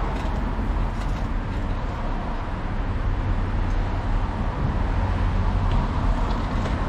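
Steady city traffic noise: an even low rumble with no distinct events.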